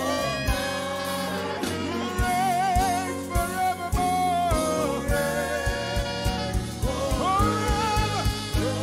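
Live gospel praise-and-worship song: a group of singers, with a sung lead wavering in vibrato, over bass guitar and a steady drum beat.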